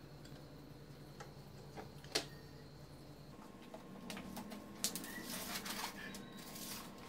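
Faint scattered clicks and taps over a low steady hum, which cuts off a little over three seconds in. Then come handling clicks and rustling as a steel tape measure is pulled out along the wall.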